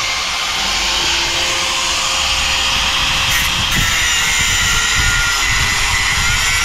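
Battery-powered angle grinder running and cutting away a chunk of concrete from a scrap-metal find: a steady high whine over a dense grinding hiss, the motor's pitch sagging slightly under load in the second half.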